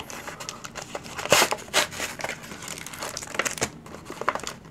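Cardboard backing of a Pokémon card blister pack being torn and crumpled away from its plastic shell: irregular crinkling and crackling rips, the loudest a little over a second in.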